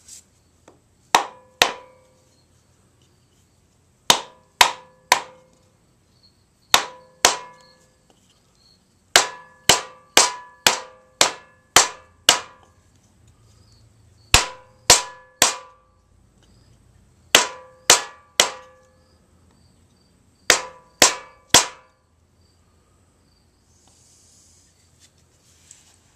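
Mallet striking a wooden block held against a pilot shaft bushing, driving the bushing into the crankshaft of a 390 cubic-inch engine. Sharp knocks come in quick groups of two or three with pauses between, plus a faster run of about seven near the middle, each with a short ring.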